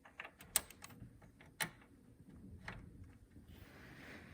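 Small plastic clicks and taps of an RGB cable connector being worked onto a motherboard's addressable RGB header: a handful of sharp ticks, irregularly spaced.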